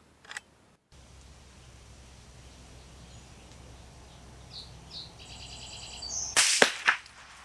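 Henry lever-action .22 LR rifle firing a single shot about six and a half seconds in, followed under half a second later by a second sharp crack. Just before, a bird gives a few short chirps and a fast trill.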